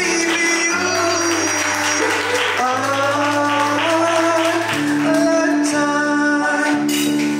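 A singer holding long, gliding notes into a handheld microphone over backing music whose low notes change every couple of seconds.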